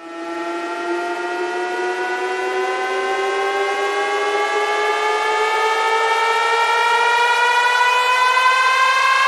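Siren sound effect played at full volume through a large sound-system rig: one held, buzzy tone with many overtones that rises slowly and steadily in pitch, getting gradually louder.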